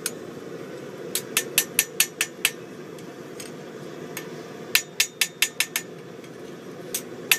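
Hand hammer striking a hot knife blade on an anvil to flatten it: two quick runs of ringing blows, about five a second, with a lone blow between them and another near the end, over a steady low hum.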